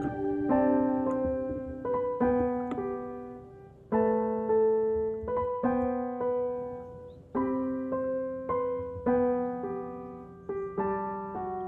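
Background piano music: a slow, gentle melody of single notes and chords, each struck and left to fade before the next.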